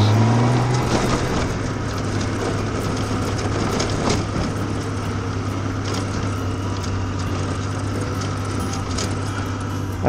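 Honda Gold Wing touring motorcycle's engine running steadily at low speed, with wind and tyre noise on a dirt track and faint scattered clicks.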